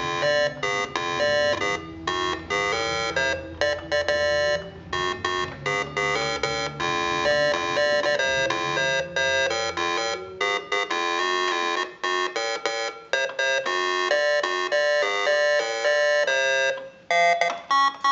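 Vintage Russian electronic keyboard played by hand in short notes and chords. Lower notes sound beneath them for the first half and drop out about ten seconds in.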